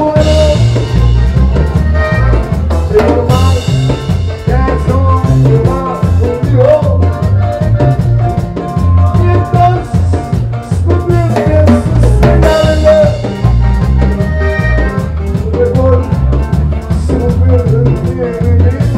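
Norteño band playing: button accordion and 12-string bajo sexto over electric bass and a drum kit keeping a steady beat.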